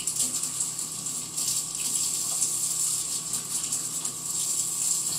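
Sink tap running in a steady hiss while hands are washed under it; the water starts suddenly and is shut off near the end.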